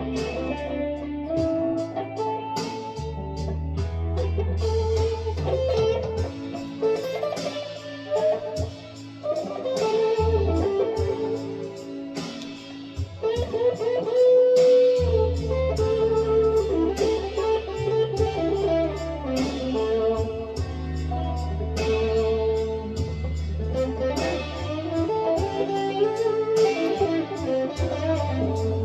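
Gibson Les Paul Traditional electric guitar playing a melodic lead line of single notes, over held low bass notes that drop out twice for a few seconds.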